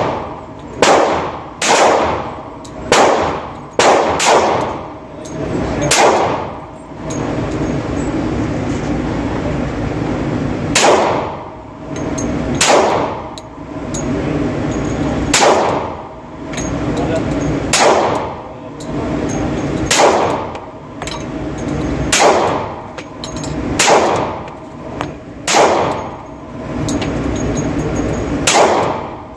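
Glock 20 10mm Auto pistol firing single shots, about fifteen in all, spaced one to three seconds apart, each a sharp crack with a short ringing tail.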